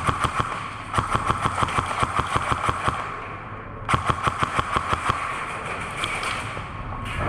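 Airsoft electric rifle firing rapid full-auto bursts: a short burst at the start, a longer one of about two seconds about a second in, and another at about four seconds.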